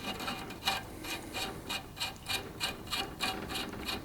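Ratchet wrench clicking in quick, even strokes, about three clicks a second, as the flange nut is run onto the left-hand-threaded shaft of a bench grinder.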